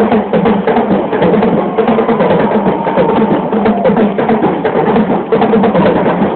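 Street-parade drumming: drums and percussion beating a fast, steady rhythm for the street dancers.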